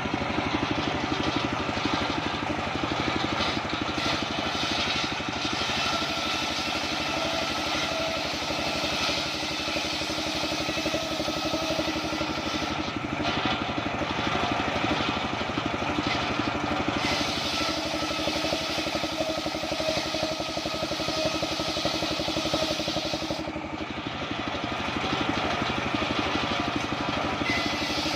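Engine of a homemade circular-saw rig running steadily at an even pitch. A hiss over the top of it thins out twice, for a few seconds each time.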